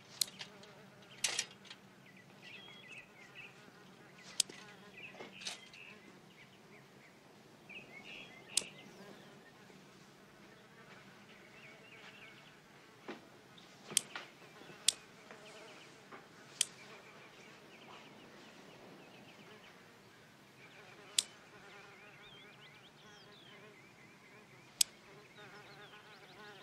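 Housefly buzzing in flight, the buzz coming and going, with sharp clicks every few seconds as wooden chopsticks snap shut trying to catch it.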